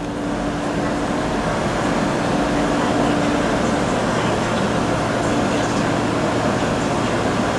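MTR diesel locomotive No. 62 running through a station on a non-stop working: a steady engine drone with one held tone.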